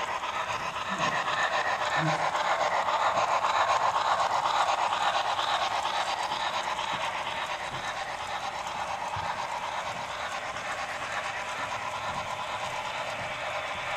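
HO-scale model steam locomotive and its freight cars running along the layout track, a steady rushing sound that grows louder over the first few seconds and then slowly fades.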